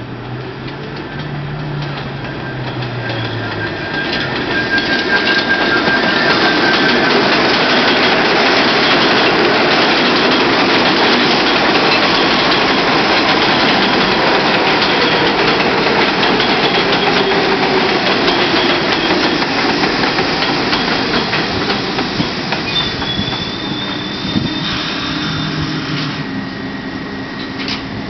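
Bombardier R62A subway train on the (7) line pulling into an elevated station. Its wheels rumble and clack over the rail joints, loudest as the cars pass, with a whine that falls in pitch as the train slows and a brief high squeal near the end.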